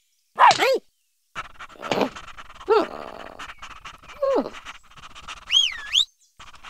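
Cartoon animal voices: a dog character gives a few short calls, each sliding down in pitch. Near the end a cartoon bird gives a high, wavy whistle.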